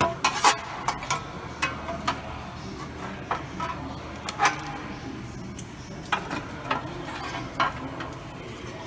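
Irregular sharp metallic clinks and taps of hand tools and bolts at a car's rear differential, over a low steady hum.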